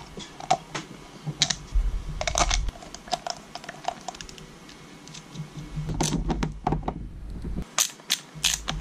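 Irregular small clicks and knocks of a black plastic Jabsco bilge check valve being pressed back together and its screws driven with a screwdriver, parts and tools tapping against each other.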